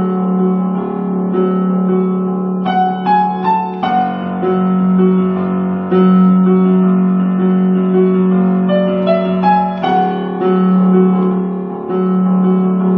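Background music: a piano-like keyboard tune over a held low note, with a quick rising run of notes about three seconds in and another near the ten-second mark.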